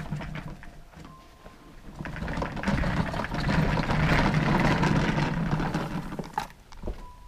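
Handling noise on the camera's microphone as it is turned by hand: a broad rubbing, rumbling noise that swells up about two seconds in and dies away, ending with a sharp knock about six and a half seconds in.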